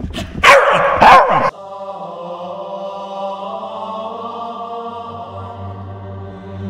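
A dog barks twice, loud and close, then the sound cuts off suddenly into slow chant-like background music over a steady held drone.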